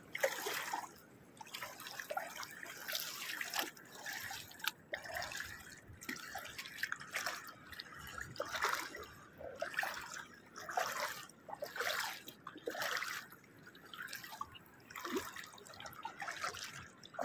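Footsteps wading through shallow seawater, each step a short splash, about one or two a second.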